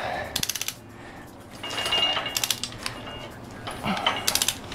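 Ratchet head of a long wrench clicking in three quick runs as the handle is swung back between pulls, tightening the crankshaft main bearing bolts on a Mini Cooper S engine block, with light scraping of metal between the runs.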